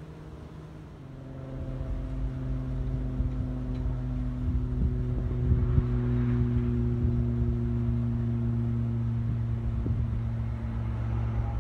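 An engine running steadily at idle, a low hum that grows louder about a second in.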